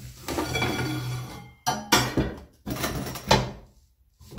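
A long stainless steel flat bar being handled: metal scraping and ringing as it slides, then several sharp clanks, the loudest a little past three seconds in. The cut-off saw's motor is not running.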